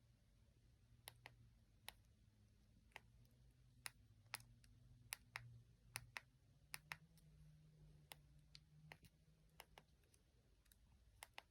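Near silence broken by faint, irregular small clicks, about twenty of them over the stretch.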